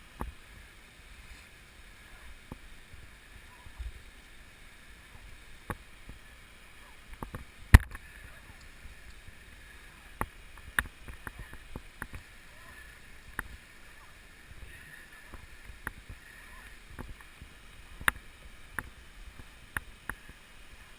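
Scattered sharp clicks and knocks at irregular intervals, one much louder about 8 s in, over a faint steady background.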